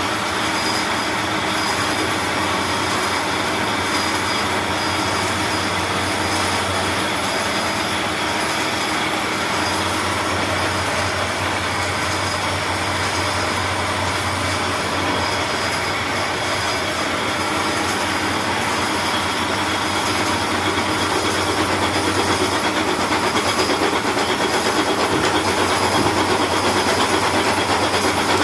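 Milling machine making a finishing cut in iron: a steady mix of machine running and metal-cutting noise with several steady high tones, growing slightly louder near the end.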